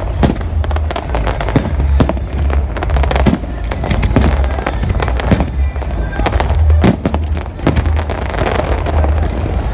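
Fireworks display going off: a continuous string of sharp bangs and crackles from aerial shells in quick succession, with a heavier boom standing out about seven seconds in.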